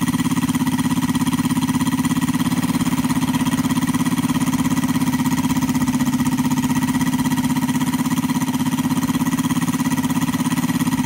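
Homemade 100cc five-cylinder four-stroke radial engine, built from a Saito FG60R3, running steadily at a constant speed while turning a 26×12 propeller.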